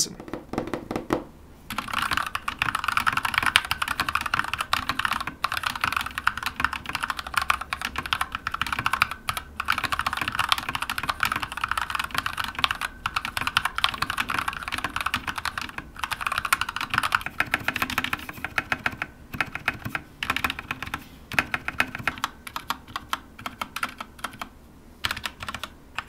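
Continuous typing on an Akko 3068 Silent BT 65% mechanical keyboard with Gateron pink switches, a dense run of key clacks with a few short pauses, starting about a second and a half in. Its hollow plastic case has no insulating material, giving bottomed-out keystrokes a somewhat louder, hollow sound.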